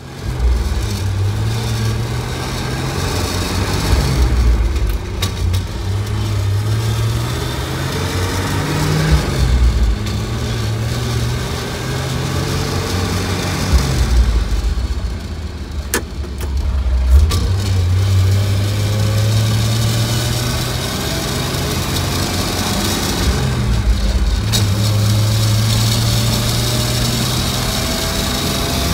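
Chevrolet C60 dump truck's 261 straight-six engine heard from inside the cab, driving under load. The engine note climbs and then drops off several times as the driver works through the gears of the four-speed manual gearbox, then holds a steady pitch near the end.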